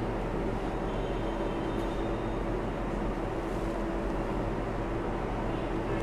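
Steady background drone with a low, even hum and no distinct events.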